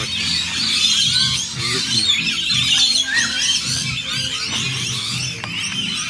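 Nylon-string classical guitar being played, with a flock of rainbow lorikeets chattering and screeching continuously over it.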